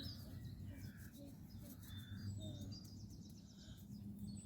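Faint birdsong: short chirps and calls from several birds, over a low steady background rumble.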